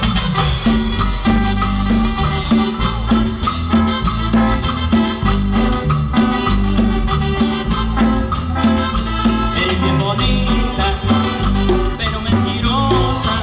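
A live Latin dance band playing: a steady bass line under a quick, even percussion beat, with melodic instruments on top.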